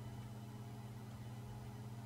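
Steady low hum with a faint hiss: the background noise of the voice-over recording setup, with nothing else sounding.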